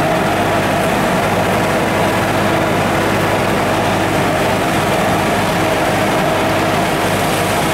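Steady engine drone of a vineyard sprayer rig working along a row of grape vines, running at a constant speed with a steady hum.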